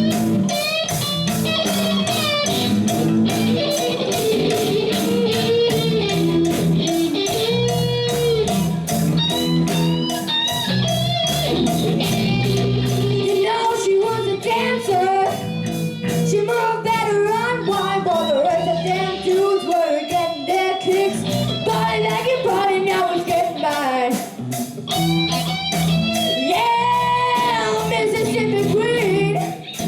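Live rock band playing an instrumental section: electric guitar lead with bending notes over a steady drum beat and bass.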